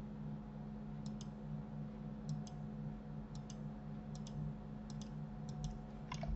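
Computer mouse clicking in quick pairs, about once a second, over a low steady hum.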